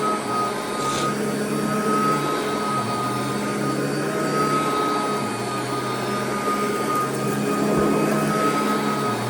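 Royal vacuum cleaner running steadily on carpet: a continuous motor hum with a steady high whine, and a brief crackle about a second in.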